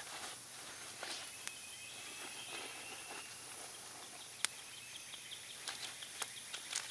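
Wood campfire crackling faintly, with a few sharp pops and snaps, the loudest about four and a half seconds in, over a steady outdoor hiss and faint high chirping.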